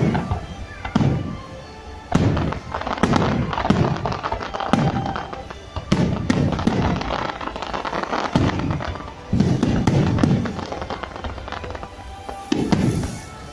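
Aerial fireworks shells bursting in a rapid string of booms, about one a second, with crackling from the stars, over music playing along.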